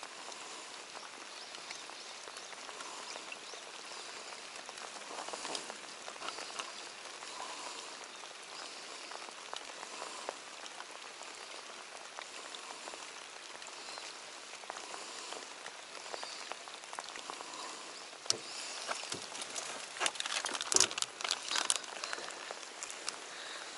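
Steady rain falling on the water, with a few sharp knocks and rustles near the end.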